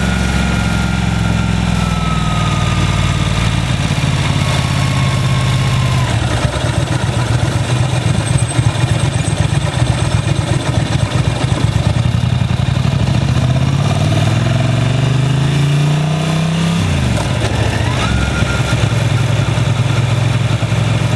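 Motorcycle engine running steadily while riding. About two-thirds of the way in its pitch climbs for a few seconds, then drops sharply.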